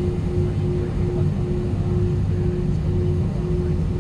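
Steady low rumble of an Airbus A319 heard from inside the cabin, with a steady hum tone that breaks off briefly about twice a second.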